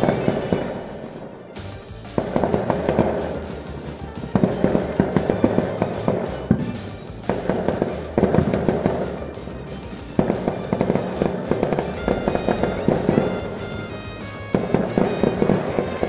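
Fireworks going off in a string of volleys, each opening suddenly into a dense crackle of small bangs that lasts a second or two. A fresh volley starts about every two seconds.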